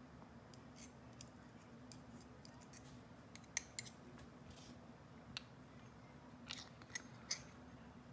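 Faint, irregular small metallic clicks and ticks of a GEGE lock's parts being handled and fitted back together during reassembly, a couple of sharper clicks in quick succession about halfway through. A faint steady hum lies underneath.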